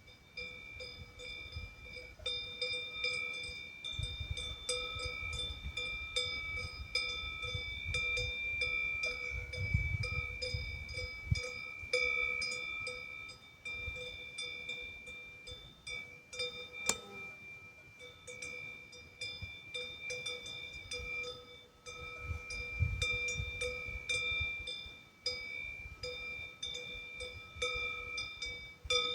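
Cowbells on grazing cattle clanking over and over, their ringing tones overlapping without pause. A low rumble comes and goes underneath, and there is one sharp click about halfway through.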